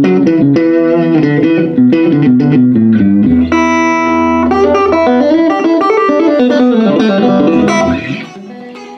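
Stratocaster-style electric guitar played through a 1956 Gibson GA6 tube amplifier: clean single-note runs and chords, with one chord left ringing about three and a half seconds in. The playing stops about eight seconds in, leaving the last notes fading out.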